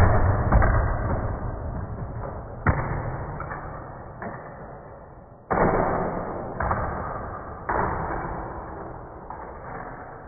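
A Lego model being thrown and crashing: a string of about nine sudden knocks and scrapes, each fading out over a second or two.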